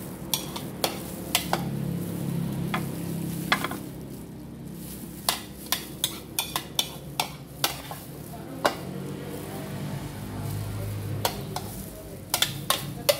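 Metal spoon scraping and tapping against a bowl while scooping chicken fajita filling onto a tortilla: a string of sharp clicks and scrapes, busiest in the middle, over a steady low hum.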